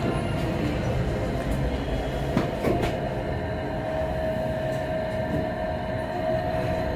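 Kone traction elevator car travelling, heard from inside the cab as a steady riding rumble, with a couple of light clicks about two and a half seconds in and a steady tone coming in about halfway through.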